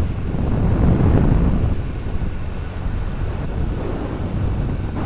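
Wind rushing over the microphone with a steady low rumble from riding a motorcycle.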